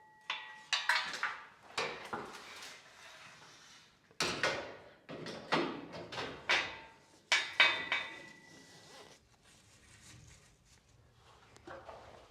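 Metal garage door track hardware clanking as it is handled and assembled: a string of sharp metallic knocks, some ringing briefly, loudest a little past the middle.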